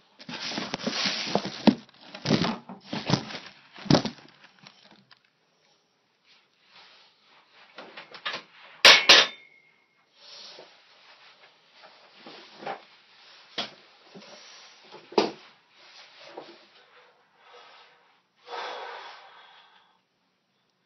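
Handling noise: rustling, shuffling and scattered knocks as someone moves about and handles gear around a weight bench. About nine seconds in comes one sharp clank, the loudest sound, with a brief metallic ring after it.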